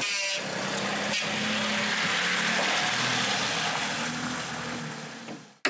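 A van's engine running under a steady rushing noise, which fades out near the end.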